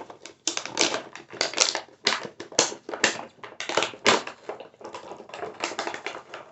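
Rapid, irregular clicking and clattering of hard plastic as a plastic puzzle cube and its packaging are handled.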